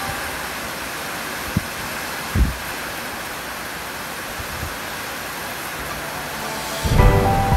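Steady rush of typhoon wind and rain, with two short low thumps about one and a half and two and a half seconds in. Music comes back in near the end.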